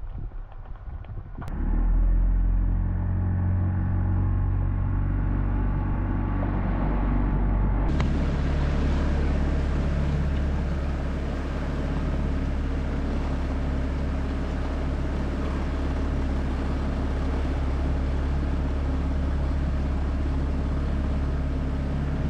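A small fishing boat's outboard motor running steadily at cruising speed, a low drone that comes in about a second and a half in. About eight seconds in, a brighter rushing hiss joins it abruptly.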